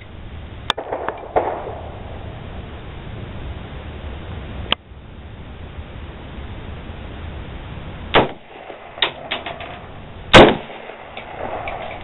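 AK-47 rifle fired in single shots a few seconds apart, sharp reports with a brief echo. The loudest two come about eight and ten seconds in, with fainter shots and clicks between them.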